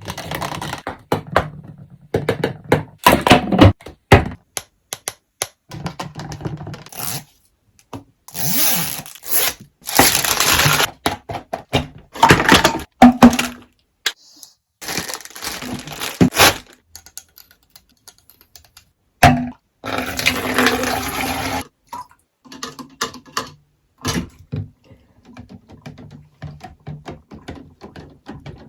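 Toy packaging being opened by hand: plastic and cardboard rustling, scraping and tearing in several bursts of a second or two, with sharp cracks and knocks in between.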